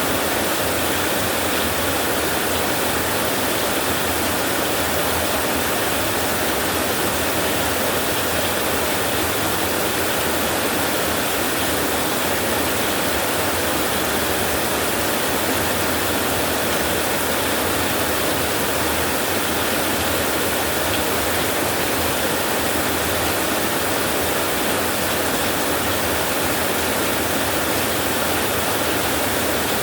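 Steady heavy rain on a tin roof, an even, unbroken hiss with no thunder.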